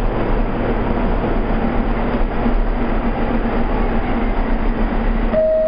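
Steady rumble and hum of an R44 subway car standing at the platform. Near the end a single clear chime note begins, the first of a falling two-note door chime.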